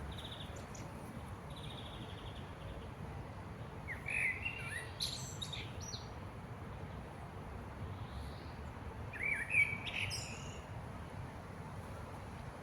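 Thrushes calling: two short chirping phrases, one about four seconds in and one about nine seconds in, with fainter short calls near the start, over a steady low background hum.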